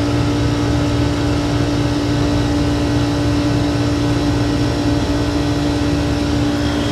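Refrigerant recovery machine's compressor running steadily with a constant hum, still pulling on a system already drawn down into a vacuum at the end of recovery.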